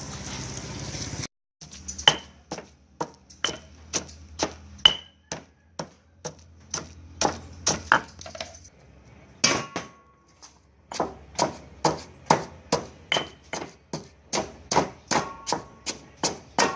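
Steady run of hard strikes in food preparation, about two a second, with a brief pause around the middle and some short ringing on the later strikes.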